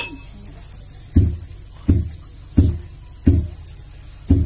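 Rice being pounded into flour by hand: heavy, regular thuds about every 0.7 s, with one beat missed just after the start.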